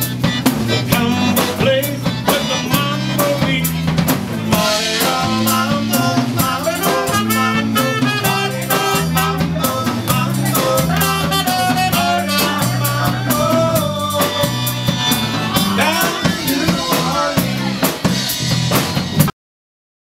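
Cajun band playing live, with a diatonic button accordion, electric bass and drum kit. The music cuts off suddenly near the end.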